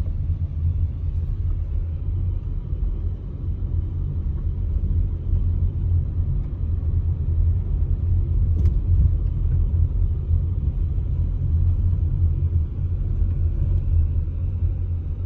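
Car driving slowly, a steady low rumble of engine and road noise, with a single sharp click partway through.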